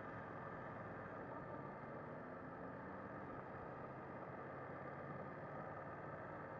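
BMW F 900 R's parallel-twin engine running steadily at low road speed, faint and muffled.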